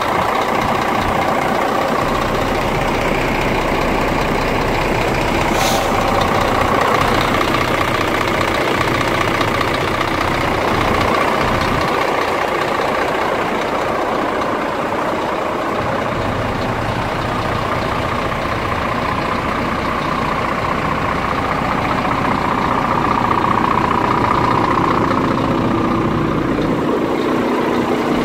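Scania P410 tractor unit's diesel engine idling steadily.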